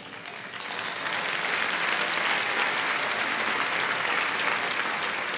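Congregation applauding: many hands clapping that build up over the first second, hold steady, then taper off near the end.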